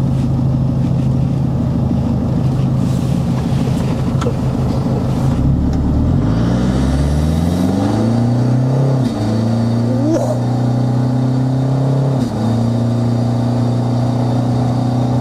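Toyota diesel engine tuned to about 300 hp, heard from inside the cabin, pulling under about three-quarter throttle. It runs low and steady, then revs climb from about five seconds in, with brief drops in pitch about nine and twelve seconds in as the gears change.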